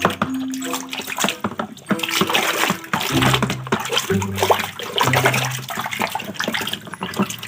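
Soapy water sloshing and splashing in a plastic basin as a hand scrubs a plastic toy mask under the surface. Background music of held notes changing pitch plays under it.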